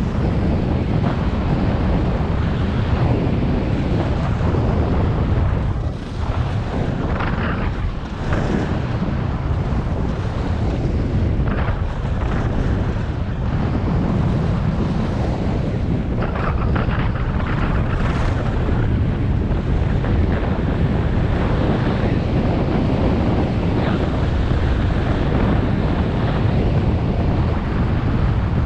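Rushing wind buffeting an action camera's microphone as the skier runs downhill at about 25 mph. Several times the hiss of skis scraping over packed, groomed snow surges briefly louder.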